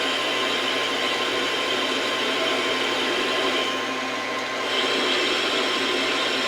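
Metal lathe running, turning the end of a bench vise's steel handle bar: a steady mechanical hum with a couple of whining tones, easing briefly about four seconds in.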